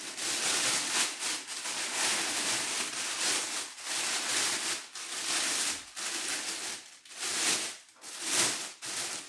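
Plastic roasting sleeve rustling and crinkling as a whole carp is worked down into it by hand, the rustle coming in uneven surges.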